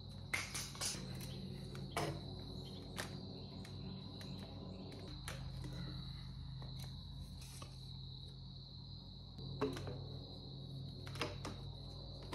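Light hollow knocks and clacks of PVC pipe and elbow fittings being pulled apart, refitted and set down on a concrete floor, at irregular moments. Under them runs a steady high insect drone and a low hum.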